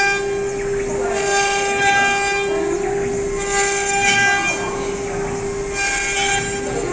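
Four-spindle CNC router carving wooden gunstocks. The spindles give a steady high whine, and a hissing cutting noise swells and fades every second or so as the bits work the wood.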